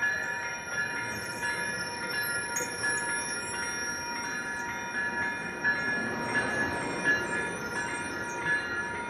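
A train rolling past with its wheels squealing high and wavering on the rails, over a steady rhythmic ringing of a grade-crossing bell. The low rumble of the train grows about six seconds in.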